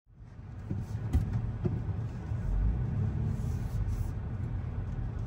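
Low, steady rumble of a car creeping forward, heard from inside the cabin, with a few faint clicks in the first two seconds.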